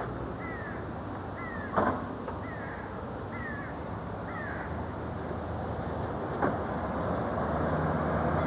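A bird gives short falling calls about once a second, five in a row over the first five seconds, over a steady low rumble. Two sharp knocks come about two seconds in and again past six seconds.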